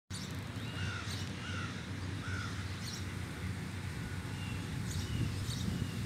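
Birds calling in the trees: three short calls in the first couple of seconds, then fainter calls and thin high chirps, over a steady low rumble.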